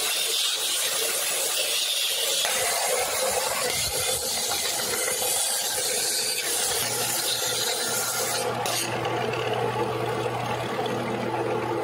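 Benchtop belt-and-disc sander running while small wood pieces are sanded on its belt: a steady hiss of abrasive on wood, with a low motor hum coming in about two-thirds of the way through.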